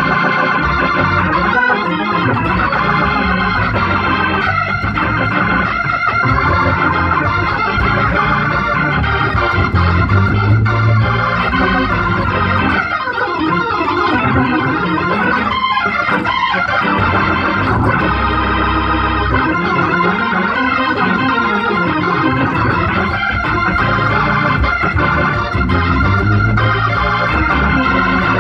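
Hammond organ playing gospel: sustained chords on the manuals, changing every second or so, with low bass notes underneath.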